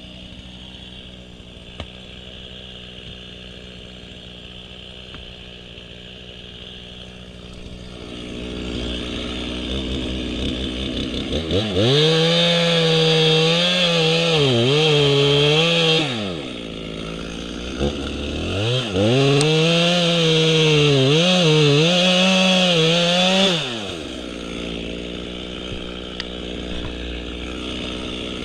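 Chainsaw engine idling, then run up to full throttle for two long cuts through oak, its pitch dipping again and again as the chain loads in the wood. It drops back to idle between and after the cuts and revs up again at the very end.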